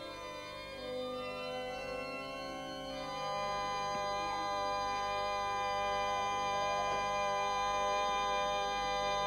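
Pipe organ playing a sustained held chord, growing fuller and louder about three seconds in.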